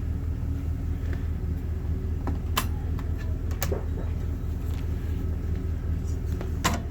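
Steady low rumble of an idling vehicle engine, with a few sharp clicks and knocks, about two and a half and three and a half seconds in and again near the end.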